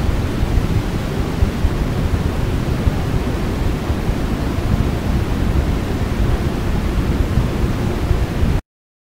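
Dense, static-like wall of noise from a lo-fi raw black metal demo tape, heaviest in the low end with no clear pitch, which cuts off abruptly to silence near the end.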